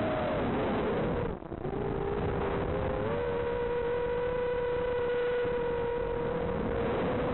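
REKON 5 FPV quadcopter's motors and propellers whining over rushing air, the pitch shifting with throttle. The whine drops away briefly about a second and a half in as the throttle is chopped, then comes back and holds steady.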